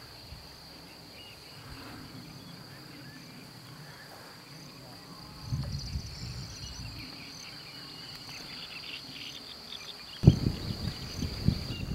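Insects chirring steadily in a grassy meadow, a high, even drone, with a few faint bird chirps. Low buffeting on the microphone comes in briefly about five and a half seconds in, then louder from about ten seconds in.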